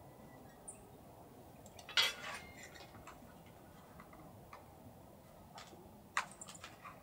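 Tableware being handled: a sharp clink about two seconds in with a few light knocks after it, then another clink and a short rattle near the end.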